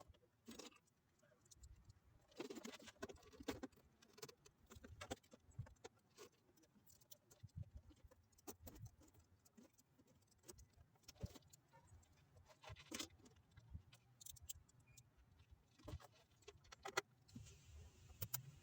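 Faint, scattered clicks and rustling handling noises, irregular and with no steady sound beneath them.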